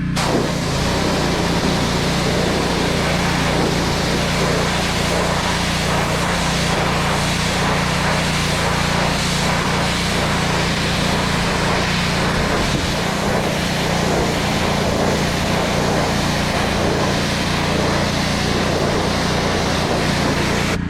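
Petrol-engine pressure washer running steadily while its high-pressure water jet sprays onto a fence. The spray starts suddenly at the outset and cuts off abruptly near the end, leaving the engine running on its own.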